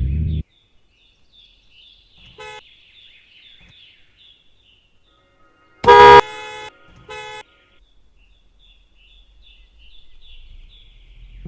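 Car horn sounding in short toots: a faint one about two and a half seconds in, then a loud toot about six seconds in, quickly followed by two shorter, quieter ones. Birds chirp in the quiet gaps, and a low vehicle rumble builds near the end.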